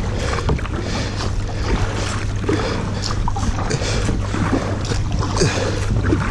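Kayak paddle strokes splashing in a shallow, fast river riffle, with water rushing and crackling around the hull.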